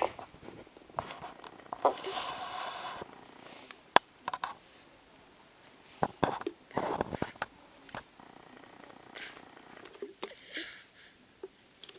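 A sleeping baby snoring: a raspy breath comes about every three to four seconds, with a few sharp clicks in between.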